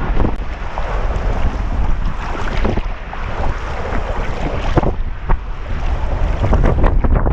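Wind buffeting the microphone with a steady low rumble, over water splashing and sloshing around a sea kayak as a wooden Greenland paddle strokes through choppy water, with a few sharper splashes.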